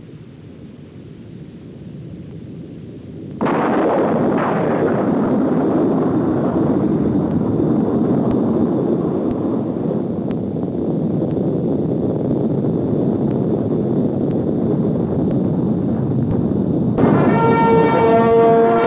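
A low rumble swells, then about three and a half seconds in a loud, dense roar breaks in suddenly and holds steady. Near the end, bells start pealing over it.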